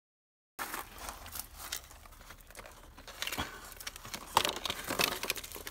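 Hands prying apart a knife-pierced smartphone: crackling and crinkling of broken glass and plastic as the case and screen are pulled open, with a couple of louder snaps about four and a half and five seconds in. It starts abruptly after half a second of silence.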